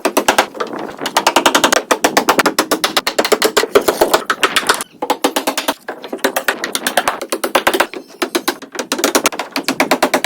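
Rapid runs of sharp clicking knocks, about ten a second, broken by brief pauses.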